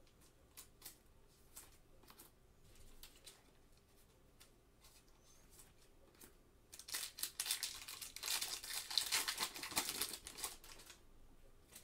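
Foil wrapper of a Panini Select basketball card pack crinkling and tearing as it is ripped open, starting about seven seconds in and lasting about four seconds. Before it come a few light clicks of cards being handled and set down.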